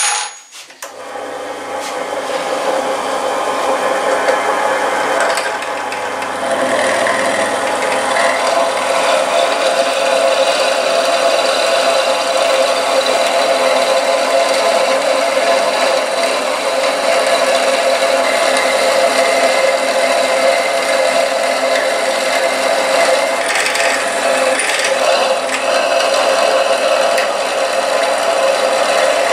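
Bench drill press switched on and running up to speed, then drilling a 3.5 mm bit into a moped seat's metal hinge pin held in a vise. It is a steady motor whine mixed with the noise of the bit cutting, with a short dip about six seconds in.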